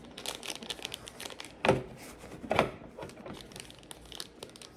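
Packaging crinkling and rustling as a small parcel is opened and handled by hand. Two louder, sharp knocks come about a second and a half and two and a half seconds in.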